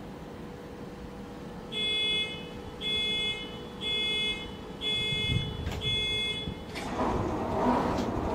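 Model railway station sound effect: five electronic beeps, about one a second, each about half a second long, over a faint steady hum. A rushing noise rises just after the last beep, near the end.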